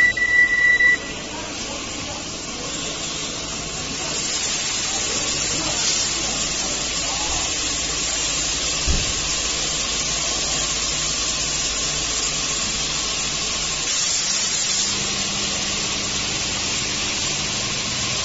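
High-pressure water spraying from the overhead arm of a CH-200 touchless car wash onto an SUV, a steady hiss that grows louder about four seconds in. An electronic beep from the machine sounds for about the first second.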